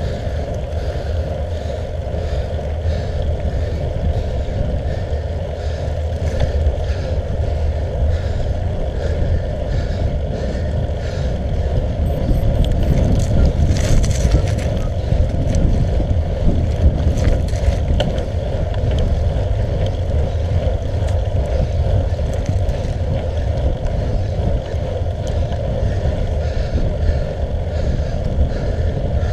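Steady rumble of tyre, road vibration and wind on a road bike's handlebar-mounted camera during a climb, with a few sharp clicks about halfway through.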